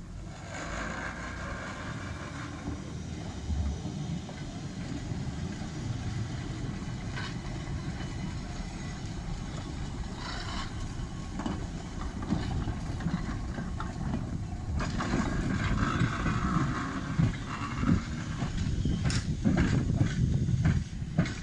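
Blackpool Corporation double-deck electric tram No. 40 rumbling past on its rails, a steady wheel-on-rail noise. A few sharp knocks come near the end.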